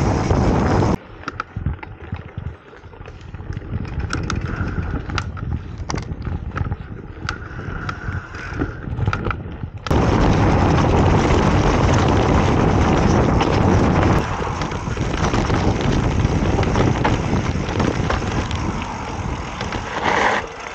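Wind buffeting the microphone of a handlebar-mounted action camera on a moving mountain bike, a loud rushing rumble, mixed with the bike clicking and clattering over a dirt and gravel track. The rush cuts out abruptly about a second in, leaving mostly scattered clicks and knocks, and comes back just as suddenly about ten seconds in.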